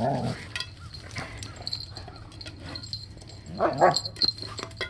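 German Shepherd puppy giving short bark-like vocalizations: one right at the start and a longer, wavering one nearly four seconds in. Scattered light clicks in between as she noses at her metal dish.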